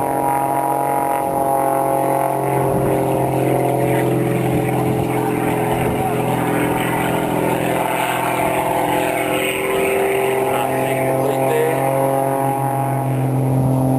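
Aerobatic display plane's piston engine and propeller droning steadily at one pitch as the aircraft tail-slides and tumbles end over end.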